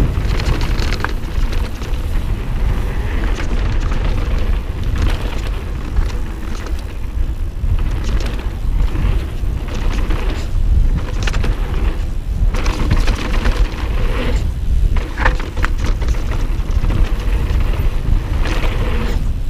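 Steady low wind noise on the microphone of a mountain bike descending a fast flow trail, mixed with tyre noise on the trail. Occasional knocks and rattles come from the bike over bumps and jumps.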